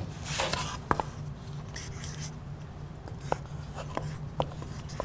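Dry-erase markers writing on small whiteboards: scratchy marker strokes, the longest about half a second in, with a few short sharp clicks of the markers against the boards.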